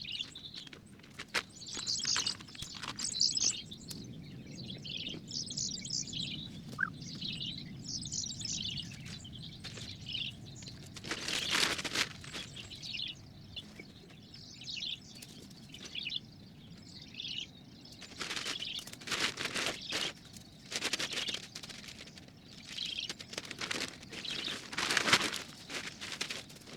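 Small woodland birds chirping and calling throughout, with bursts of rustling and handling noise about halfway through and several more in the last third as camping gear is packed away.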